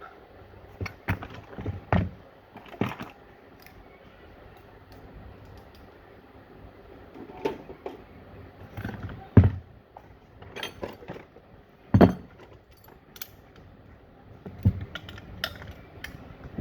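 Hand work on a domestic water pump's metal parts: scattered sharp knocks, taps and clinks of tools and parts at irregular intervals, the two loudest about nine and a half and twelve seconds in.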